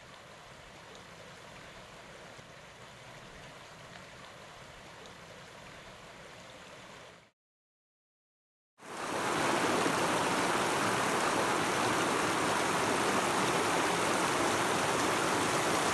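Shallow river running over gravel: a faint, steady rush of water. About seven seconds in it fades out to silence for a second and a half, then comes back much louder and closer.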